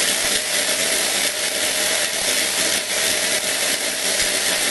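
Steam hissing steadily from the nozzle of a Signora electric steam cooking pot as its steam generator runs, with a faint steady tone under the hiss.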